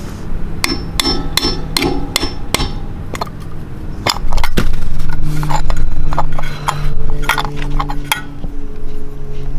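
Hammer tapping a center cap onto a trailer's alloy wheel hub: a quick run of sharp taps, about three a second, then scattered single taps. A steady low hum comes in about four seconds in.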